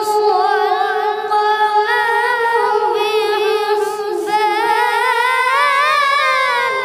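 A boy reciting the Quran in the melodic tilawat style. It is one long held phrase with wavering, ornamented turns; the pitch climbs about five seconds in, and the phrase ends near the close.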